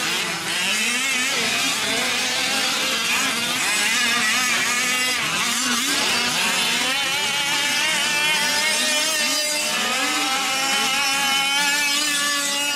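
Several gas-powered 5th-scale RC off-road trucks' small two-stroke engines buzzing and revving, their pitches rising and falling over one another as the trucks throttle up and back off around the track.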